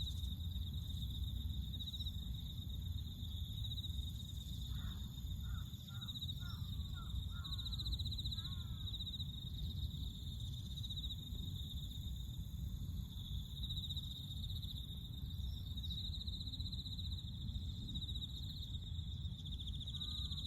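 A continuous high, pulsing insect trill over a low wind-like rumble, with a bird calling six or seven times in quick succession about a quarter of the way in and again right at the end.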